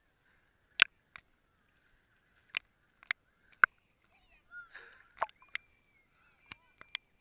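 Small ripples lapping and splashing against a waterproof action-camera housing sitting at the waterline, heard as irregular sharp clicks and slaps with a short slosh about halfway through.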